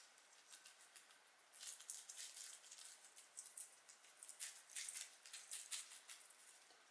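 Guinea pigs chewing lettuce and carrot: faint, quick crunchy bites in irregular clusters, busier from about a second and a half in.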